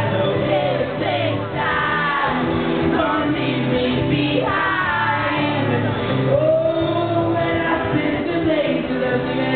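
A live band playing a song, with a singer's voice over the instruments.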